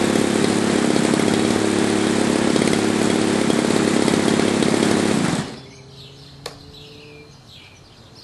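Gas RC airplane engine with a new RC-EXL electronic ignition running steadily, the ignition working fine. About five seconds in the engine cuts off abruptly and the propeller winds down to a stop.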